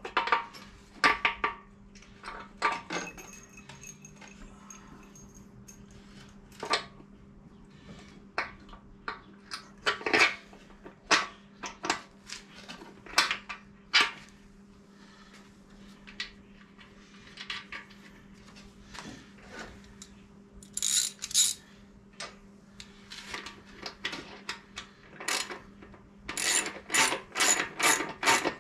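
Small metal parts and a hand tool clicking and clinking at a Harley-Davidson Sportster's front gas tank mount as it is bolted back on. The sharp clinks come one at a time, then in quicker runs about two-thirds through and again near the end, over a faint steady hum.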